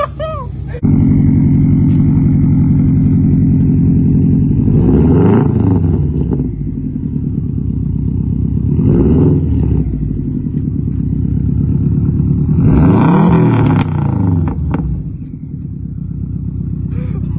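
2005 Subaru Legacy GT's turbocharged flat-four engine and aftermarket exhaust running, coming in suddenly about a second in. It idles and is blipped three times, the pitch rising and falling each time.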